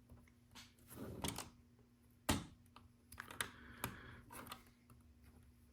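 Small plastic LEGO pieces clicking and clattering as they are handled and pressed together: a scatter of irregular sharp clicks, the loudest a little over two seconds in.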